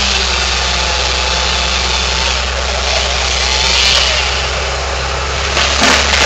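Steady engine noise from the Ford F-700 bucket truck running, with the chainsaw cutting the base of the dead red oak. About six seconds in comes a short burst of cracks as the tree begins to fall.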